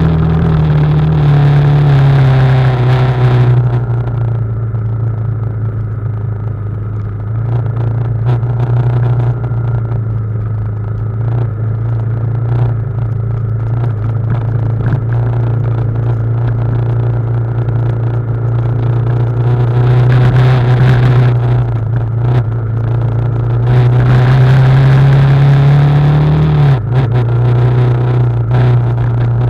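BMW G310GS single-cylinder motorcycle engine running through a downhill trail descent. It is higher and louder at first, settles lower about four seconds in, then rises again near the end before dropping sharply. Scattered knocks and clatter come from the bike over rough ground.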